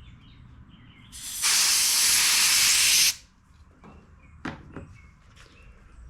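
A loud hissing blast of pressurized spray through a small-engine carburetor part, lasting about two seconds and cutting off sharply, to clear gummed-up stale-fuel deposits from its passages. A few light taps follow.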